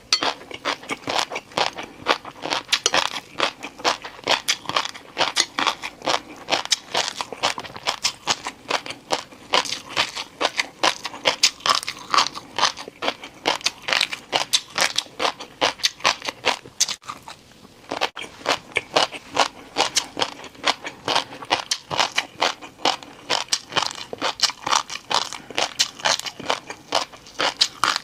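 Close-miked crunching and chewing of crispy noodles, a dense run of sharp crunches several a second, with a short lull a little past halfway.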